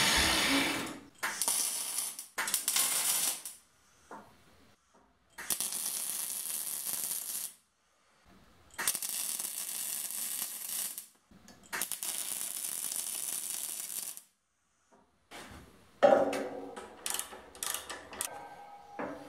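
MIG welding arc crackling and hissing in bursts of about two seconds, several times over, with pauses between. Near the end, a quick run of metallic clicks and clinks from a wrench working the electric motor's mounting bolts.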